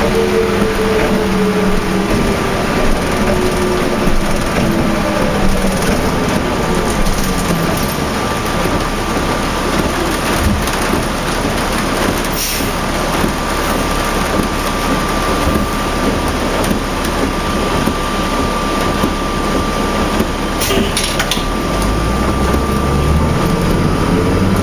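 A 2004 New Flyer D40LF diesel transit bus with a Cummins ISL engine and ZF automatic transmission, heard from on board in heavy rain. Engine and driveline whine fall in pitch as the bus slows over the first several seconds. Then comes a steady wash of rain and road noise with a thin steady high tone, and the engine pitch rises again near the end as the bus accelerates.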